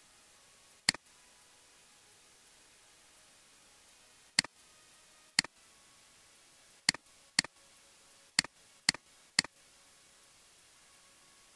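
Computer mouse clicking eight times at irregular intervals, each a short sharp click, over a faint steady hiss. The clicks come as points are picked in a drawing program.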